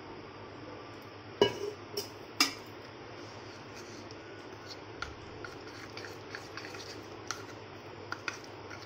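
Metal spoon clinking and scraping against a ceramic bowl while stirring flour and water into a thick slurry. Three sharper knocks come between about one and a half and two and a half seconds in, then light, irregular taps.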